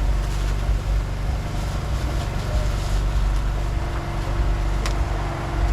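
A steady low engine-like drone with one sharp click about five seconds in.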